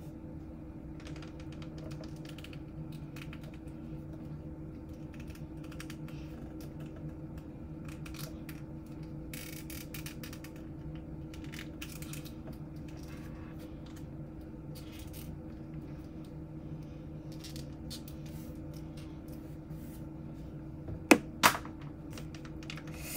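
Room tone with a steady low hum and scattered faint ticks, then two sharp clicks half a second apart near the end.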